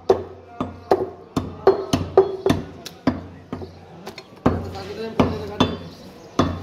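Heavy butcher's cleaver chopping buffalo meat on a wooden chopping log: a quick run of hard, sharp chops, about two to three a second, each with a brief ringing tail, with a short lull partway through.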